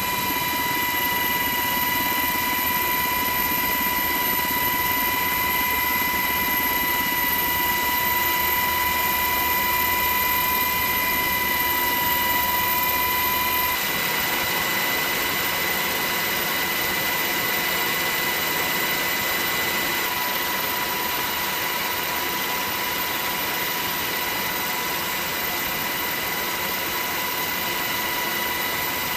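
Steady turbine whine and engine rush of an aircraft in flight, heard from on board, with a fixed high-pitched tone over it; the tone shifts slightly at a cut about 14 seconds in.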